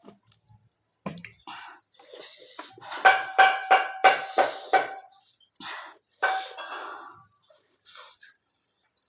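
Cutlery clinking against a dish while eating noodles: a quick run of ringing clinks about three seconds in, then a few more a little later.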